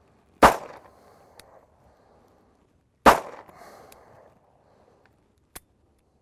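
Two shots from a Smith & Wesson 638 snub-nose .38 Special revolver, about two and a half seconds apart, each echoing away for about a second, with a couple of faint clicks in between. The revolver is fouled with dirt from a reliability test.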